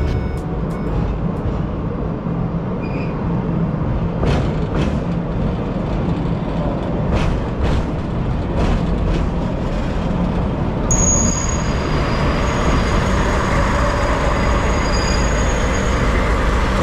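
Sagano trolley train's diesel locomotive and cars running with a steady low rumble, with a few sharp clicks of wheels over rail joints between about 4 and 9 seconds in. About 11 seconds in the sound cuts to the locomotive standing at the platform, its diesel engine running.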